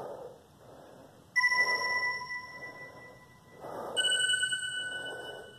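Heavy, rhythmic breathing during a plank hold, a breath about every second. Two bell-like tones ring over it: one about a second and a half in, and a higher one about four seconds in, each fading over about two seconds.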